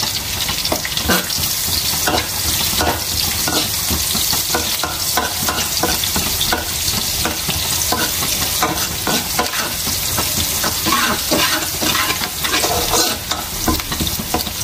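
Chopped onion and garlic sizzling in hot oil in a non-stick wok, with a metal spatula stirring and scraping against the pan in many short strokes.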